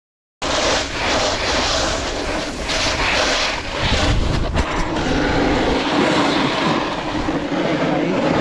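Snowboard skidding and scraping down hard, icy snow, with wind rushing over the action camera's microphone, starting about half a second in. The board slides rather than biting into the frozen slope.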